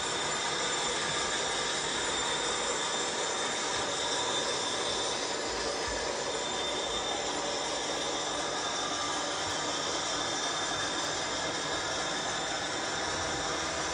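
Cavalex OO-gauge Class 56 model locomotive's DCC sound decoder playing a steady diesel engine sound through its small speaker, along with the running of model tank wagons on the track.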